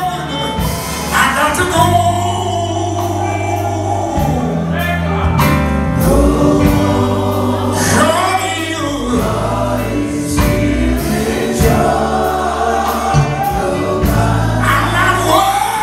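Live gospel music through a PA: a male lead singer on a handheld microphone, over electric bass, keyboard and a drum kit with a steady beat.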